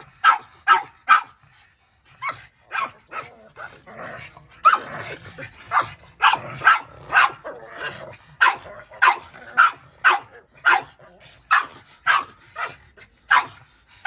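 Small dogs, a miniature pinscher and two pugs nose to nose, barking at each other in short sharp yaps, about two a second, with a brief pause about two seconds in.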